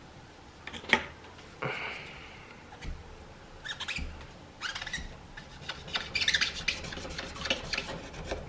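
Scraping and rubbing on an iPad Pro's frame as leftover screen adhesive is cleaned off with alcohol: a sharp click about a second in, then a run of short scratchy strokes.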